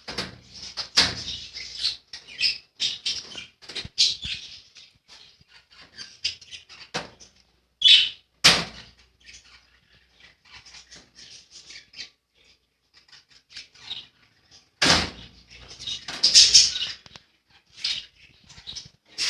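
Budgerigars chirping and chattering in a cage: a continuous run of short, high chirps. There are a couple of sharp louder bursts about eight seconds in, and a louder rustling, flapping stretch near the end.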